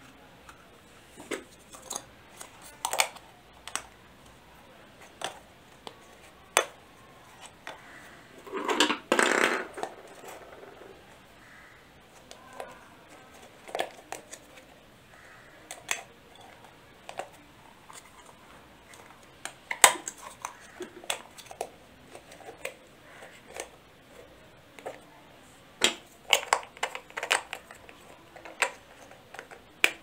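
Handling noise of a toy RC car's rubber tyre being fitted onto its plastic wheel hub: scattered plastic clicks and taps, with a longer rubbing scrape about nine seconds in.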